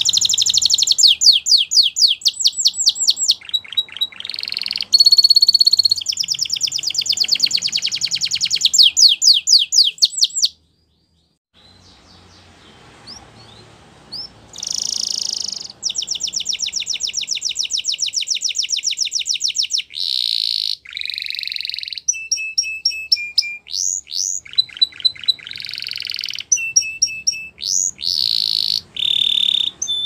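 Spanish Timbrado canary singing in fast, rolling trills of rapidly repeated notes. It pauses for a few seconds about ten seconds in, then goes on with more trills and quick rising and falling whistled notes.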